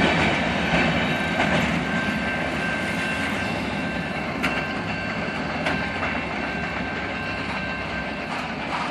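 Freight train's autorack cars rolling past: a steady rumble of steel wheels on rail with a few sharp clicks and a faint thin squeal, slowly getting quieter.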